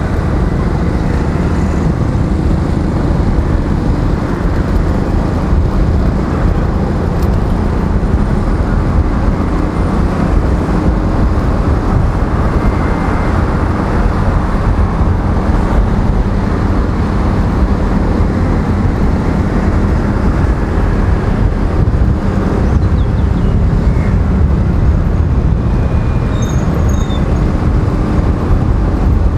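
Steady low rumble of a Honda scooter being ridden through traffic, its engine and road noise mixed with wind on the microphone, with other traffic around it.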